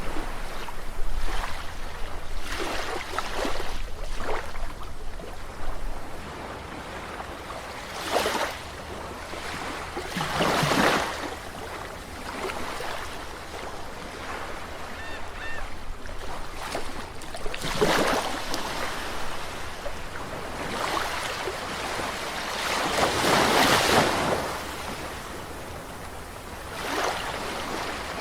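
Sea waves washing onto a shore: a continuous hiss of surf, with a wave breaking and rushing up every few seconds. The longest and loudest wave comes about two-thirds of the way through.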